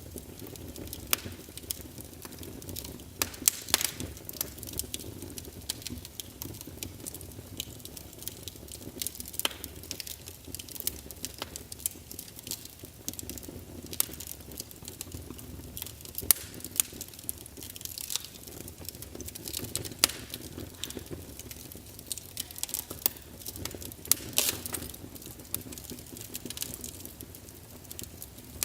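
Wood fire crackling in a fireplace: irregular sharp pops and snaps over a steady low rush of the flames.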